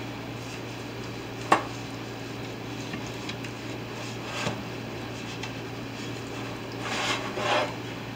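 A utensil brushing olive oil around a metal baking pan: soft scrapes and dabs, loudest near the end, with one sharp knock about a second and a half in, over a steady low hum.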